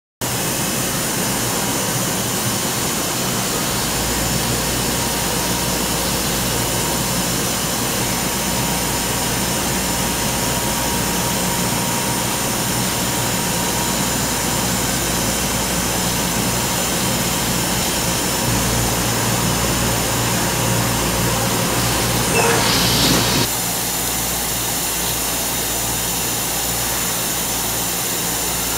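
Prima Platino 2040 CO2 laser cutting machine running as it cuts sheet metal: a steady mechanical noise with a low drone and a faint hum. About three-quarters of the way through, a louder rushing burst lasts about a second.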